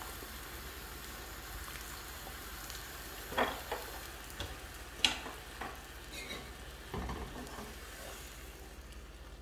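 Thin sugar syrup of water and a little sugar boiling hard in a nonstick frying pan on a gas hob: a steady bubbling hiss, with three light knocks a second or two apart in the middle.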